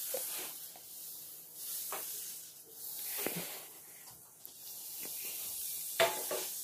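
Soft, steady hiss of a frying pan over a gas burner, with a few light knocks of the pan or spoon.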